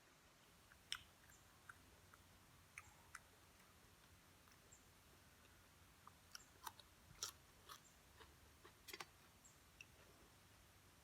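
A person chewing and crunching food close to the microphone: faint, with scattered short clicks and crackles, busiest from about six to nine seconds in.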